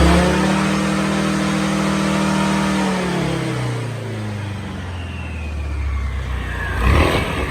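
Scooter engine and CVT being revved: held at high revs, dropping back about three seconds in, then climbing again with a rising whine and a sharp knock near the end. This is a test of the stock CVT clutch, which judders on take-off and rattles.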